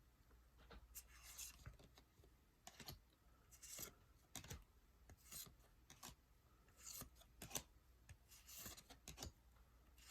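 Yu-Gi-Oh! booster pack and trading cards being handled: faint rustling and card-sliding, about ten short swishes roughly once a second.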